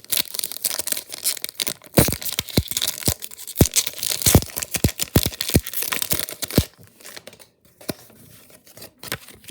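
Foil Pokémon booster-pack wrapper being torn open and crinkled: a dense crackle of tearing and crinkling with many sharp snaps, dying down about seven seconds in.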